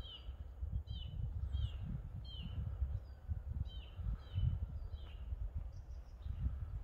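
A small songbird calling, a run of short high chirps that each slide downward, repeated about one to two a second. A low rumble on the microphone runs underneath and is louder than the bird.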